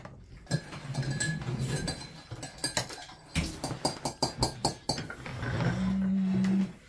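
Metal serving tongs and cutlery clinking and knocking against ceramic plates and a serving bowl as roast chicken is served, with many quick clinks. Near the end a steady low hum sounds for about a second.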